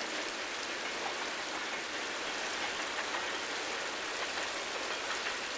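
Steady rushing of river water, an even hiss with no low rumble.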